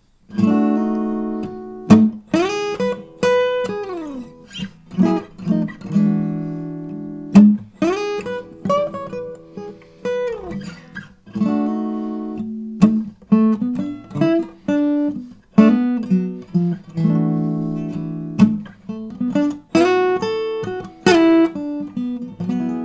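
Acoustic guitar played solo: chords strummed and picked with ringing notes and sliding pitches between them.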